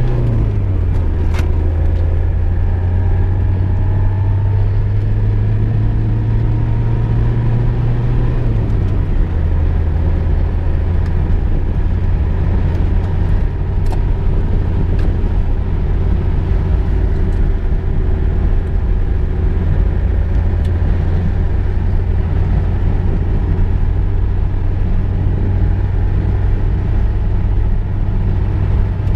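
VW Golf II driving, heard from inside the cabin: a steady low engine and road drone with tyre noise, the engine note dropping slightly about nine seconds in.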